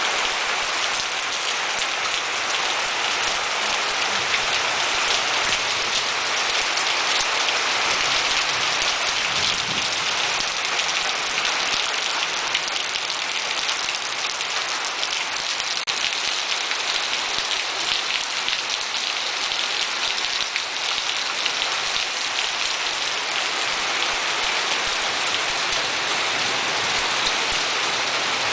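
Steady heavy rain falling and pattering on surfaces, a dense even hiss of many drops.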